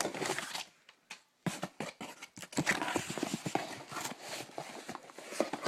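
A cardboard shipping box and its paper contents being rummaged through: irregular rustles, clicks and light knocks, with a short quiet pause about a second in.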